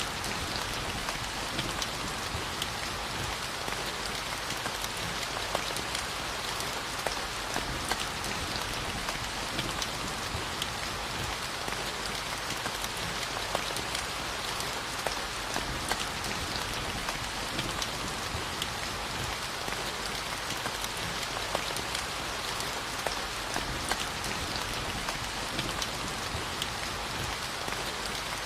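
Steady rainfall, a constant hiss with many individual drops pattering and ticking on a surface.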